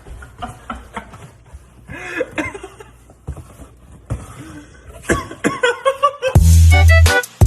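Scattered short vocal sounds like snickers or coughs, then loud music with a heavy bass beat cuts in near the end.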